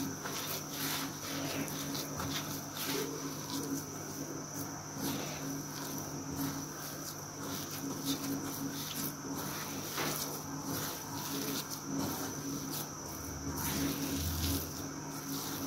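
Fingers rubbing and pressing a crumbly ghee-and-egg dough mixture against a ceramic plate, making faint, irregular scratchy rustles. Under them run a steady high-pitched whine and a low hum.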